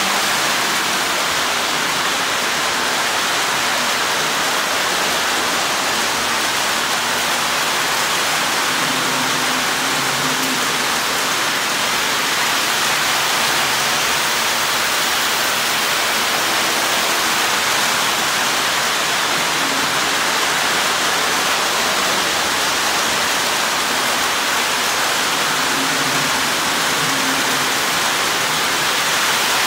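Lionel O-gauge toy trains running on three-rail track: a steady rushing noise of wheels and motors on the rails, with a faint low hum coming and going.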